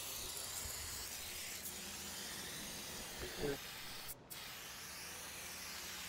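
GAF Quick Spray adhesive hissing steadily from a hose-fed spray wand as it is sprayed onto plywood, cut off briefly once about four seconds in when the trigger is let go.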